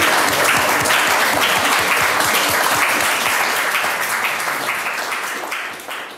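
Audience applauding: many hands clapping in a dense, steady patter that starts to die away near the end.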